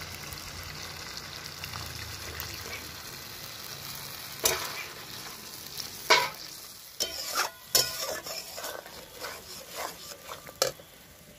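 Poppy-seed and cashew paste sizzling in hot oil with onion paste in a metal kadai, the masala being fried down. About halfway through, a steel spatula starts stirring and scraping the pan, with a run of sharp knocks against the metal.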